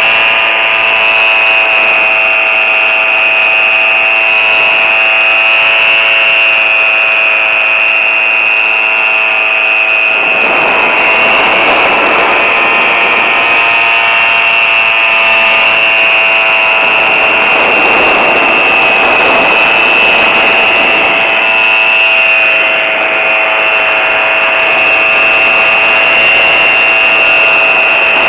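Microlight trike's engine and propeller running steadily at cruise, a loud high-pitched drone, with wind rushing over the microphone about ten seconds in and again around eighteen seconds.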